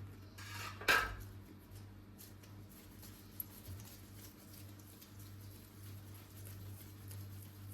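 Kitchen handling sounds: one sharp knock about a second in, then light, irregular tapping and clicking over a steady low hum.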